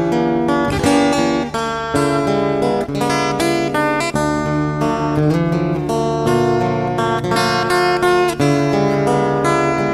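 Background music played on acoustic guitar, the notes and chords changing every second or so.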